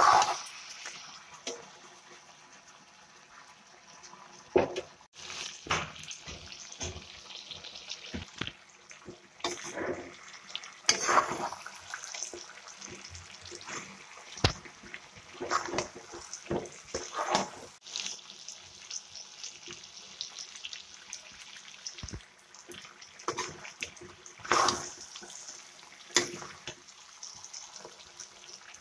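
Steel spoon stirring and scraping chicken and potato curry around a hot wok, in irregular strokes over a steady sizzle.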